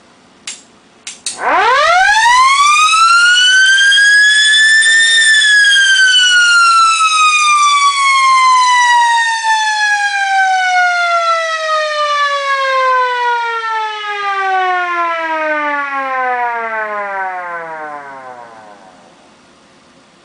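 Federal Signal 28H electromechanical siren spinning up to a high wail in about four seconds, then coasting down in a long falling whine that fades out about nineteen seconds in; its bearings are freshly regreased. A few short clicks come just before it starts.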